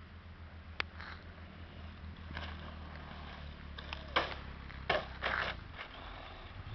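Radio-controlled HPI Blitz short-course truck driving over a dirt track, with sharp knocks and scuffs about four and five seconds in as it lands off a jump.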